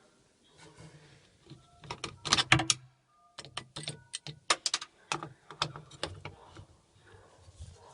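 Sharp clicks and light metallic clinks of small hardware and a tool being handled, with a cluster of knocks about two seconds in, as the metal brackets and screws behind a drawer's glides are taken off.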